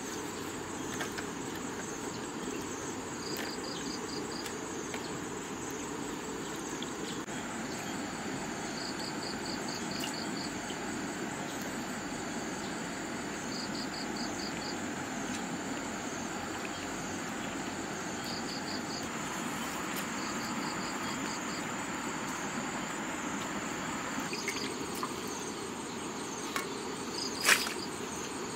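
Insects chirping: a steady high trill with short bursts of rapid cricket-like pulses every few seconds. A sharp knock sounds near the end.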